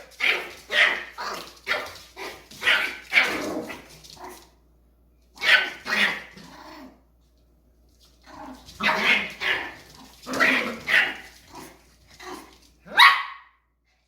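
Dog barking in quick runs of short barks, pausing twice for about a second, with one last loud bark near the end.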